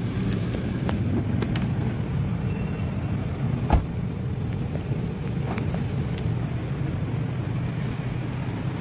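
Steady low road and engine rumble of a car heard from inside the cabin while driving, with one sharp thump a little under four seconds in.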